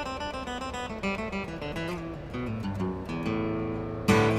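Solo guitar improvisation: a run of quick picked single notes, then held notes, and a loud strummed chord near the end.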